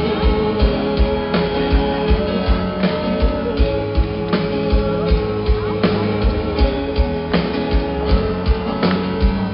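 Live rock band playing over a festival PA, heard from the audience: guitars and sustained chords over a steady kick-drum beat.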